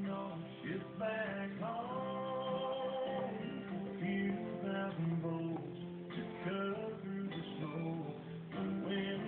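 Background music: guitar with a man singing.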